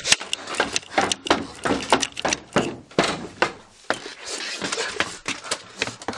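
A rapid, irregular run of knocks, scrapes and rustling, like a scuffle.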